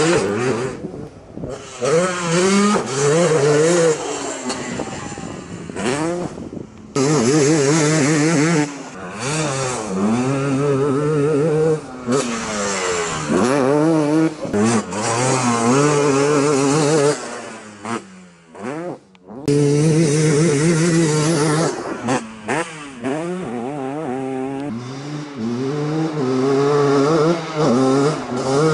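Two-stroke sport quad engines revving hard again and again, the pitch climbing with throttle and falling off between pulls, with a few sudden cuts between clips.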